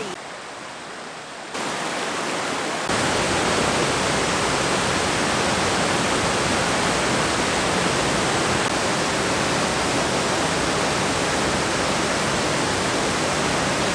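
Spring water pouring from a cave mouth as a small waterfall and rushing over rocks downstream: a steady rushing that gets sharply louder in two steps in the first three seconds.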